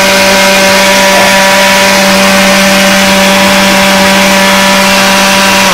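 Electric kitchen appliances, a blender and a stand mixer, running together with a loud, steady motor whine over a constant low hum. Everything stops suddenly at the very end as they are switched off.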